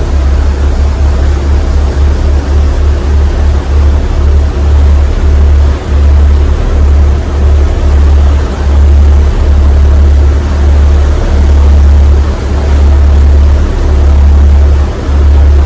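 The ferry New Kasaoka's engine droning under way: a loud, deep hum that swells and dips every second or so, over a steady rush of noise.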